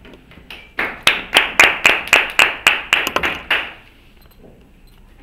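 Brief applause from a small group of people clapping by hand, about four claps a second for roughly three seconds, then stopping.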